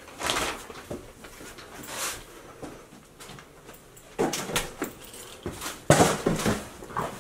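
Irregular footsteps and scuffs across a debris-strewn floor, with the loudest clusters about four and six seconds in.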